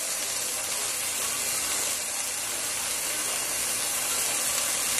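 Pot of cauliflower soup simmering on a gas stove burner: a steady hiss.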